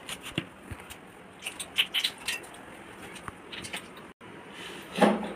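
Fingers mixing flour and water into a crumbly dough in a stainless-steel bowl: soft, irregular crackling and clicking as the hand rubs the flour and scrapes the bowl.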